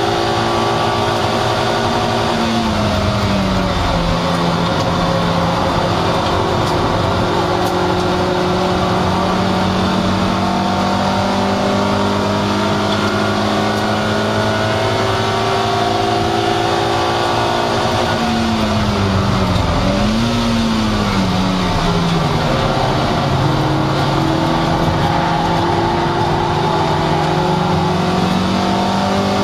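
Toyota MR2 Roadster's 1.8-litre four-cylinder engine at racing speed, heard from inside the cabin over constant wind and road noise. It holds high revs along the straights, with the revs falling a few seconds in, a quick dip and rise around twenty seconds in, and climbing again near the end.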